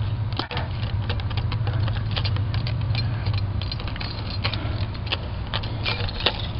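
Dry leaves and wood-chip mulch rustling and crackling close by, with many irregular sharp clicks over a steady low hum.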